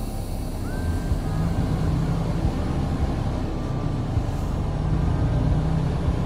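Diesel engine of a semi-truck tractor heard from inside the cab, a low rumble that grows louder about a second in as the truck pulls through a turn and picks up speed.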